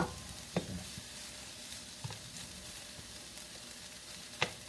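Onions frying in hot oil in a wok, a steady sizzle, with a few sharp knocks in the first second and a louder one near the end.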